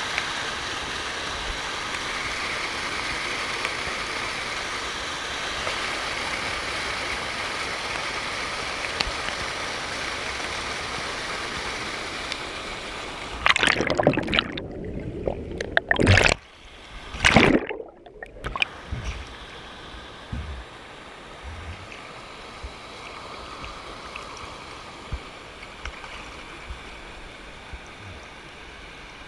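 Steady rush of falling water at the Banfora waterfalls. About halfway through come a few seconds of loud splashing, during which the sound twice turns briefly muffled; after that the water noise runs on more quietly.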